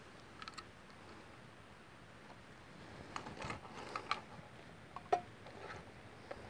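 Faint scattered clicks and rattles of cables, plugs and a small radio interface being handled and connected on a table. A few light ticks come early on, a cluster about three to four seconds in, and the sharpest click about five seconds in.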